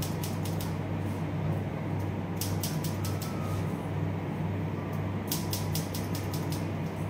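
Hair-cutting scissors snipping in three quick runs of several cuts each, over a steady low hum.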